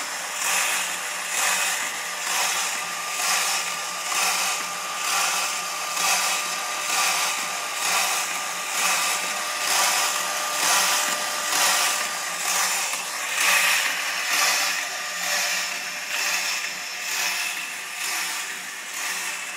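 Yarn abrasion testing machine running: a rubbing noise of netting yarn against the test surface that swells and fades about once a second with the machine's back-and-forth stroke, over a faint steady hum from its drive.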